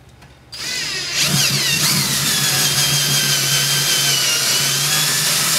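Electric drill with a twist bit, enlarging a hole in an accordion's body. The motor starts about half a second in and gets louder a moment later, its whine falling in pitch as the bit bites. It then runs steadily.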